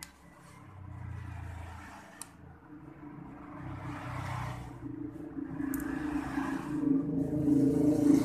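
A low steady hum that swells louder over several seconds and peaks near the end. A few small clicks and rustles come from hands working a plastic syringe apart.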